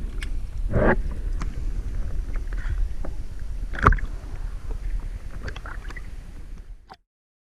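Underwater sound picked up by an action camera in its housing: a steady low rumble of moving water with scattered clicks and knocks, fading out and cutting off about seven seconds in.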